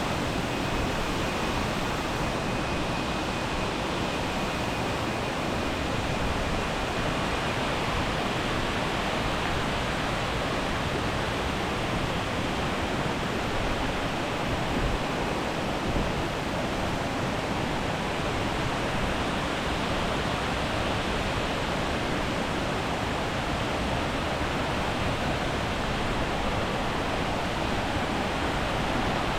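Steady, unbroken rush of falling water from a jungle waterfall.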